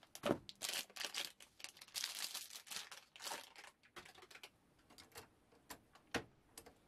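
Irregular crinkling rustles and light clicks of plastic being handled, with louder clicks about six seconds in as a hand touches the upturned ink bottles in the printer's refill ports.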